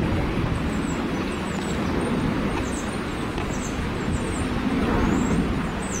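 Uneven low outdoor rushing noise, with high, thin bird chirps repeating every second or so.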